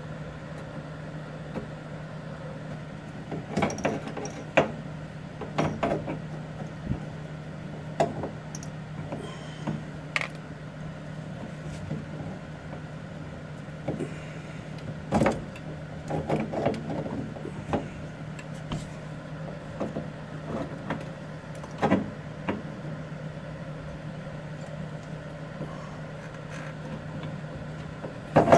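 Scattered clunks, knocks and scrapes of metal parts as an Audi A4 B8's old engine mount is worked loose and lowered out by hand, over a steady low hum.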